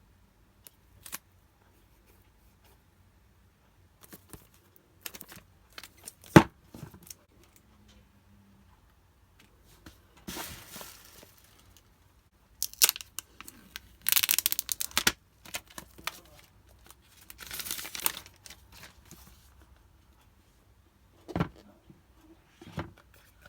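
Plastic packaging from an iPhone XS box being torn and crinkled in several short bursts, with scattered taps and clicks from handling.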